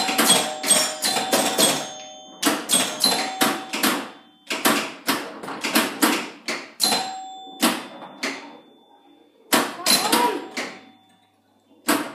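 A 1975 Gottlieb Pin Up electro-mechanical pinball machine in play: repeated bursts of sharp clacking from its flippers, coils and score reels, with short ringing bell-like tones among the clacks as the ball scores.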